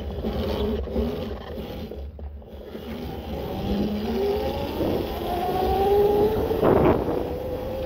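A 1500 W electric bike's motor whines while riding over rough ground off-road, its pitch rising several times in the second half as it speeds up. There is a thump near the end.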